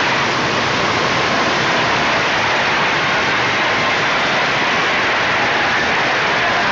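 Loud, steady hiss of white noise or static, even and unchanging.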